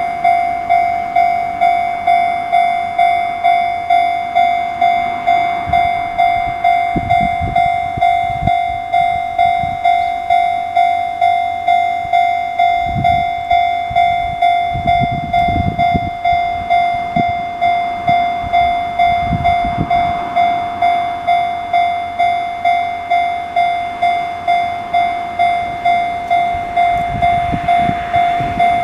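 Japanese railway level-crossing alarm, the Chichibu Railway's 'Chichibu' tone, ringing in even, repeated electronic dings a little under two a second. Scattered low thumps sound underneath it now and then.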